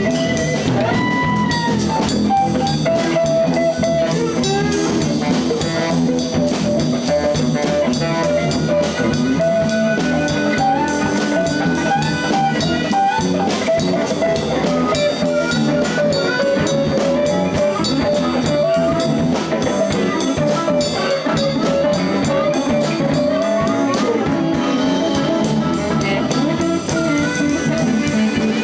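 Live blues band playing an instrumental passage: a guitar leads over bass and drum kit.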